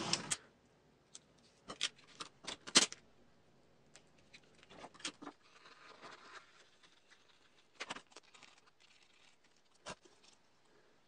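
Small parts of a wooden combination lock model being handled and fitted: scattered clicks and knocks of wood on wood, a quick cluster in the first three seconds with the loudest near the end of it, then a few single clicks. A short burst of steady noise ends just as it begins.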